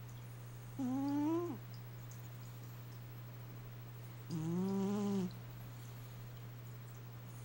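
Domestic cat snoring: two pitched, whining snores, each just under a second long and about three and a half seconds apart, rising slightly and then dropping off at the end, over a steady low hum.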